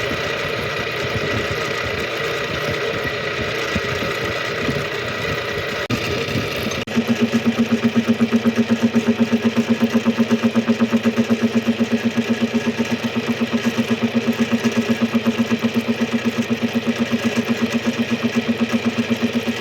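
Machine tool cutting gear teeth in metal: a steady running noise, then from about seven seconds in a loud, even rhythmic pulsing, several beats a second, as the cutter bites intermittently into the gear blank.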